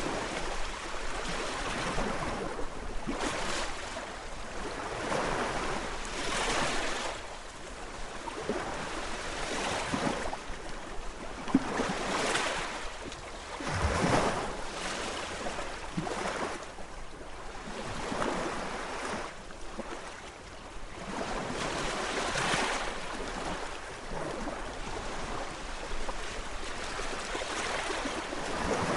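Gentle sea waves washing ashore, a hiss that swells and fades every few seconds as each wave breaks and draws back.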